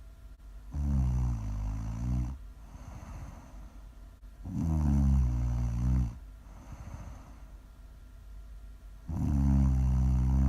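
Loud, low snoring: three long snores about four seconds apart, each lasting about a second and a half, with quieter breathing out between them.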